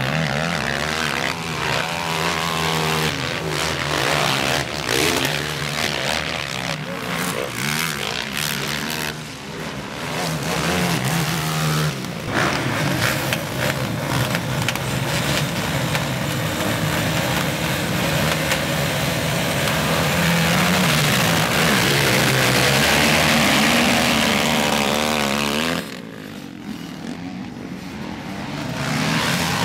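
Racing quad bike engines revving, the pitch rising and falling with the throttle. The sound drops off briefly near the end, then builds again.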